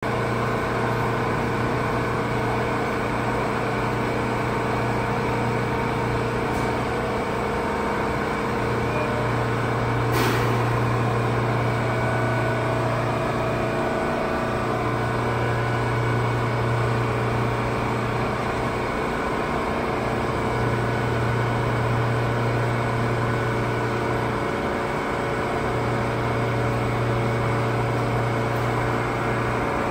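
A subway train standing at a station platform, idling with a steady electrical and ventilation hum. A low drone under it cuts in and out every five seconds or so, and there is a single sharp click about ten seconds in.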